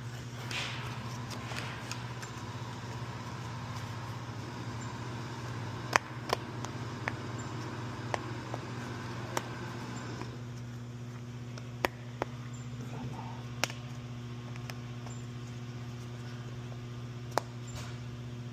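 About a dozen sharp, scattered clicks and taps of parts being handled, over a steady low hum.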